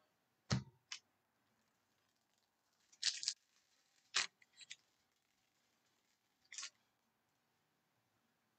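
Baseball trading cards being flipped through by hand: about half a dozen short, faint swishes and snaps of card stock sliding off card stock, spaced unevenly.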